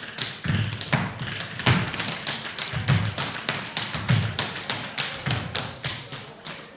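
A troupe of dancers' tap shoes striking a wooden floor in unison in traditional Newfoundland/Irish tap dancing: quick, dense taps over heavier thuds on a steady beat, a little under two a second.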